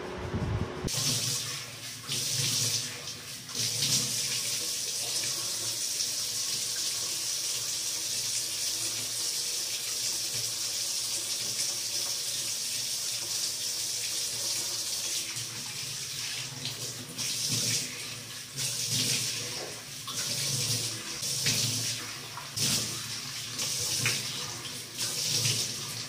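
Water running from a sink tap, with hands splashing and rinsing a dried face pack off the face. The steady flow starts about a second in, and uneven splashes come through the second half.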